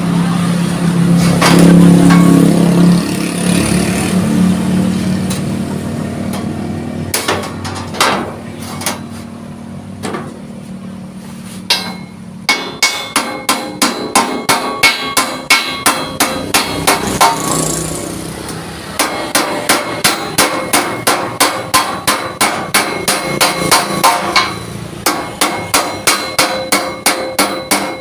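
Hammer blows on a thick steel plate, shaping a sheet-metal panel. After a low drone and a few scattered knocks in the first half, there is a long run of quick, even strikes, each with a metallic ring.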